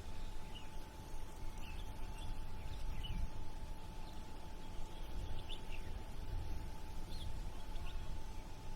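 Waterfront city ambience: a steady low rumble of harbour water and distant city noise with a faint constant hum, and small birds giving short high chirps at irregular moments, about one a second.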